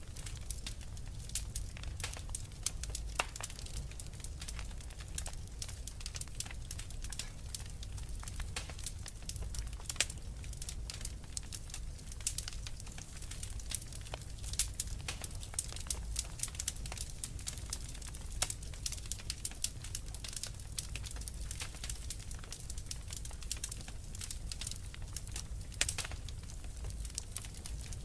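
Fireplace fire crackling: irregular sharp pops and snaps, several a second, over a steady low rumble.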